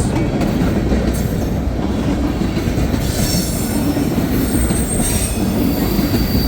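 Freight cars, including center-beam flatcars, rolling past with a steady low rumble of wheels on rail. Thin high wheel squeals come in about halfway through and again near the end, as wheels bind on the curve.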